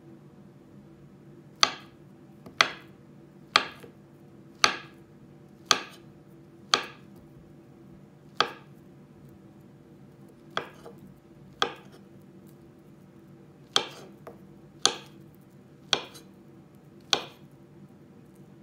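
Kitchen knife slicing a peeled banana on a wooden cutting board, the blade knocking sharply on the board with each cut, about once a second, thirteen times with a couple of short pauses.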